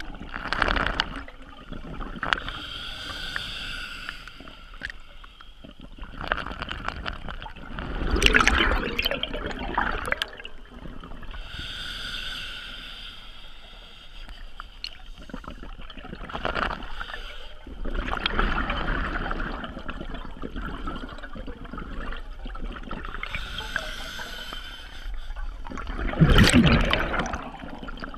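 Scuba diver breathing through a regulator underwater: a soft hiss on each inhalation, then a louder gurgling rush of exhaled bubbles, in slow cycles of about eight or nine seconds. The loudest exhalation comes near the end.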